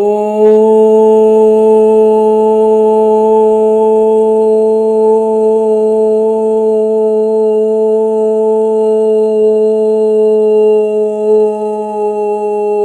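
A woman's voice toning: one long sung note held at a steady pitch on a rounded "oh" vowel, as a vocal sound-healing practice.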